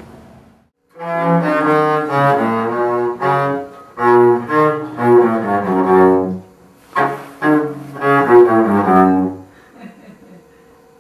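Music: a phrase of sustained notes over a low bass line, with a string-like tone. It starts about a second in, after a brief dropout, and stops shortly before the end.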